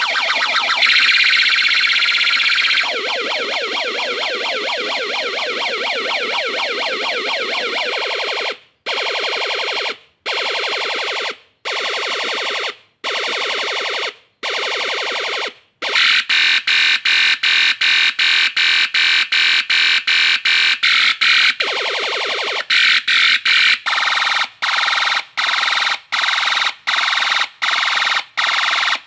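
Electronic 16-sound siren module cycling through its alarm tones. A continuous buzzy warbling tone changes, about eight seconds in, to long beeps about every one and a half seconds, then to fast pulses about three a second, then to pulses broken by short gaps.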